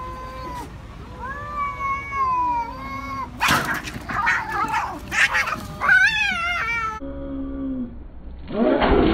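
Domestic cats yowling at each other in a standoff: long drawn-out caterwauls that rise and fall in pitch. About three seconds in they break into a few seconds of loud, harsh screeching, and a last yowl is followed by another loud harsh outburst near the end.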